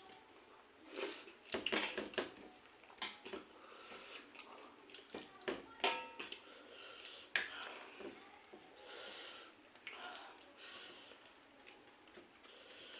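Close-up eating sounds: irregular chewing and mouth clicks, with a few light clinks of a plate and dishes.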